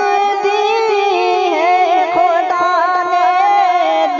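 A solo voice singing a devotional Urdu naat, unbroken, drawing one syllable out in a long ornamented melisma with a wavering, vibrato-laden pitch.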